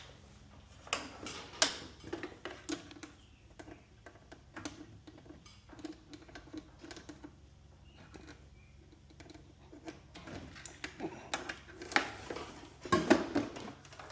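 Irregular clicks and knocks, a few sharp ones in the first couple of seconds and a denser cluster near the end.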